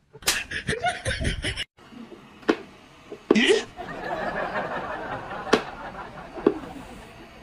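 A person laughing, then a few sharp single wooden clacks from a whack-a-mole cat toy as its peg moles pop up and are batted.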